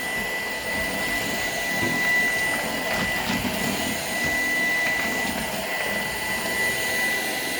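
Shark PowerDetect cordless vacuum running steadily, its motor giving a constant high whine over the rush of suction.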